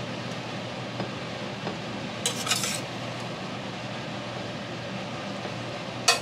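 A metal fork scraping and spooning food filling onto a ceramic plate: a short scrape about two seconds in and a louder one right at the end, over a steady background hum.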